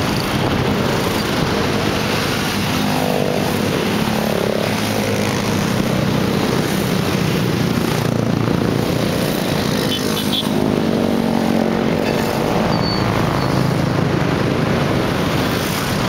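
A steady din from a column of small motorcycles and scooters riding past in city traffic, their engines rising and falling as each one goes by.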